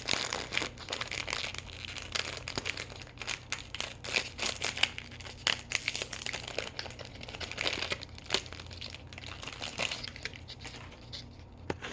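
Plastic packaging crinkling and tearing in irregular bursts as a small toy doll is unwrapped by hand.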